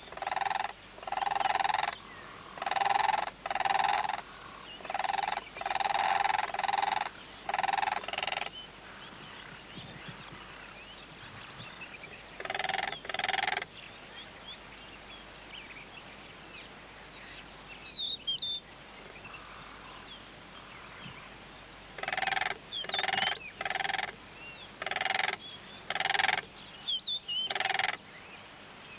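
Blue cranes calling in a duet, set off by the sight of a lion: short calls of about half a second each, coming in bouts. There are about ten in a row at the start, two more near the middle and another run of about nine near the end. Faint small-bird chirps fill the pause between bouts.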